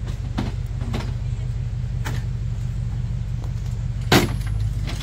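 A vehicle engine idling steadily with a low rumble. Light clicks sound through it, and one sharp clack about four seconds in as a folding camp table is opened.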